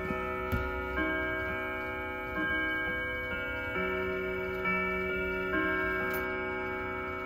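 Howard Miller Jenison wall clock chiming a melody: single struck notes of different pitches about a second apart, each ringing on into the next, with the pendulum movement ticking underneath.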